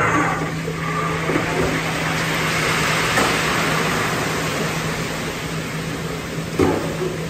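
Tripe frying in a pot of hot lard: a loud, hissing sizzle that surges at once, peaks about three seconds in and slowly dies down. A steady low hum runs under it.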